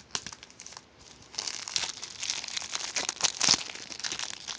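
Plastic shrink-wrap crinkling and tearing as it is cut and pulled off a Blu-ray box set: a few sharp clicks in the first second, then dense crackling from about a second and a half in.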